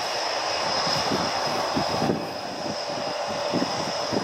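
Eurofighter Typhoon's twin EJ200 turbofans at taxi power: a steady high whine over a broad, uneven rumble as the jet rolls past.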